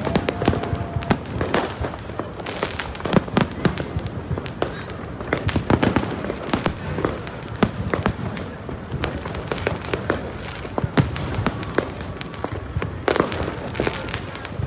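Fireworks going off in a dense, continuous barrage of bangs and crackling pops, many sharp reports a second with no pause.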